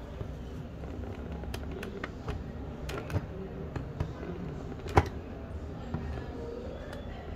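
Scattered sharp clicks of pliers and metal parts knocking against the plastic heater chamber of an electric shower while its heating element is worked on, the loudest about five seconds in, over a steady low hum.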